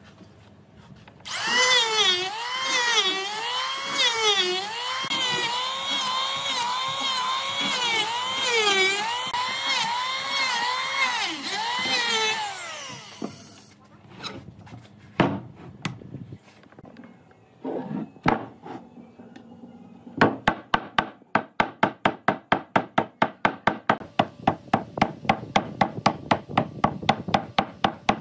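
An electric power tool works wood with a whining pitch that repeatedly dips and recovers as it bogs under load, for about eleven seconds. A few separate knocks follow. Then, about two-thirds of the way in, a fast, even run of sharp strokes begins at about five a second.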